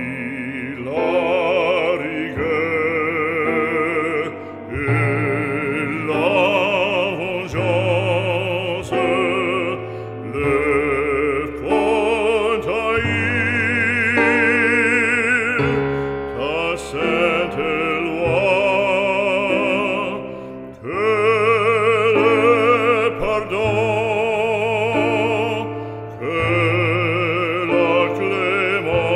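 Background music: a solo voice singing in operatic style with wide vibrato over sustained instrumental accompaniment.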